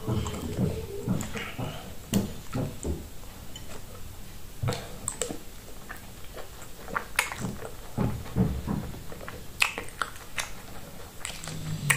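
Eating plantain fufu with soup by hand: wet squishing of the dough between the fingers and chewing, with many scattered sharp wet clicks and smacks.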